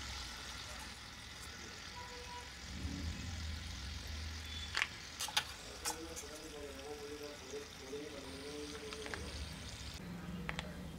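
Bread gulab jamun balls frying gently in oil in a small steel pot, a soft sizzle that fades near the end. A few light clicks of a metal slotted spoon against the pot come midway and again near the end, with a faint wavering tone in the background midway.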